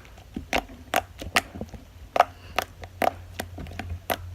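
Slime being squished and poked by hand, giving a string of irregular sharp clicks and pops, about two a second, over a steady low hum.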